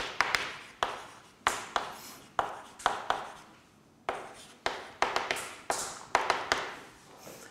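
Chalk writing on a blackboard: an irregular run of sharp taps and short scrapes, a few per second, with a brief lull about halfway through.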